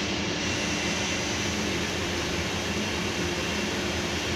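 Steady drone of running machinery: an even rushing noise with a faint low hum underneath, unchanging throughout.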